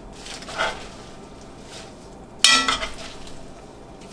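Metal tongs handling greens in a blue enamelled pot: a soft rustle about half a second in, then one sharp clank of metal on the pot with a brief ring about two and a half seconds in.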